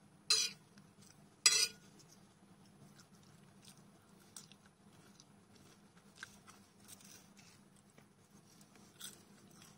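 Close-miked eating: a person chewing instant noodles with potato chips, with two short, loud mouth noises about half a second and a second and a half in, then soft chewing and slurping clicks.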